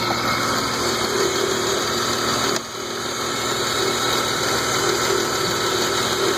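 BMW E36 M3 inline-six idling steadily, with a light lifter tick that fades as the engine warms up. The sound drops briefly about two and a half seconds in.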